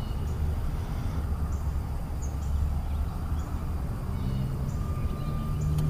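Outdoor lake ambience: a low, steady rumble with a few faint bird chirps.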